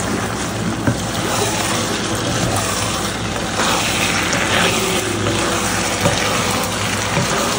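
A skillet of shrimp mac and cheese in a thick, creamy sauce, simmering with a steady sizzle and bubbling while a wooden spatula stirs it, scraping the pan with a few light clicks.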